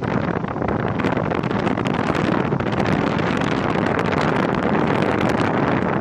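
Steady rushing noise: wind buffeting the microphone over the roar of Seljalandsfoss waterfall, with small irregular crackles.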